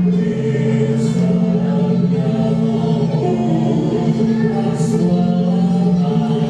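Slow music for a masked dance: steady held low notes under a sung melody. Two short hissing sounds come about one second and about five seconds in.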